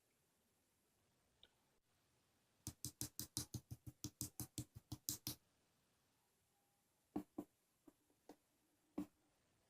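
A quick run of about sixteen sharp clicks, about six a second, then a few scattered single clicks near the end.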